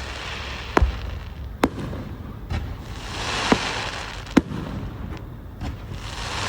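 Fireworks display: five sharp bangs a second or so apart over a steady crackling hiss of bursting shells, the hiss swelling about halfway through.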